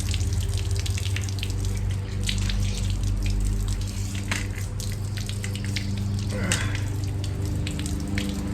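Water spraying and dripping from leaking hose fittings on a pressure washer's pump, with many small splashes, over a steady low mechanical hum.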